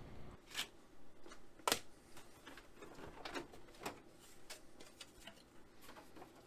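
Plastic front bezel of an Apple Lisa 2 being unlatched and pulled off the case: a series of sharp plastic clicks and knocks, the loudest a little under two seconds in.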